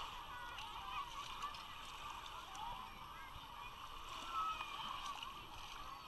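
Crowd of beachgoers, many voices chattering and calling out at once in an indistinct babble.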